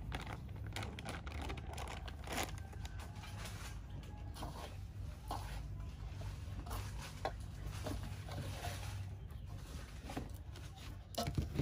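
Gloved hands mixing and kneading crispy flour into a wet dough in a metal bowl: irregular soft rubbing and squishing with occasional light pats.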